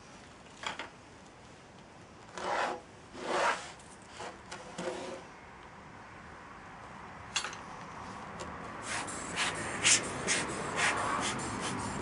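Rubbing and scraping as a wooden moulding flask packed with foundry sand is handled and turned over: two longer rubs early on, then a run of short sharp taps and scrapes through the second half.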